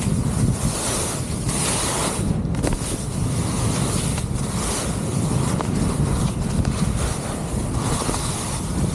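Wind rushing over the camera microphone as touring skis slide and hiss across snow on a downhill run, the hiss swelling and easing with each turn.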